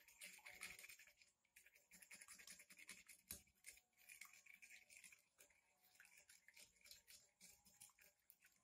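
Spoon beating raw egg in a plate: rapid, faint scraping and clicking strokes of the spoon against the plate and through the liquid egg.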